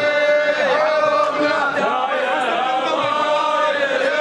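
A group of men chanting together without instruments, in long held notes that bend in pitch from phrase to phrase.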